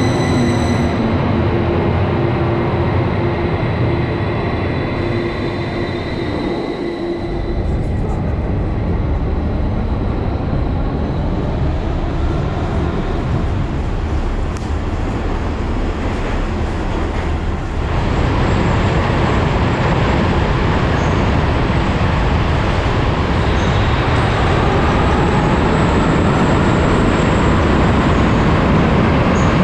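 Metrotram car on an underground line, first arriving at a station with a steady high whine that fades out within the first seven seconds, then a continuous running rumble heard from inside the car as it travels through the tunnel, getting louder past the middle.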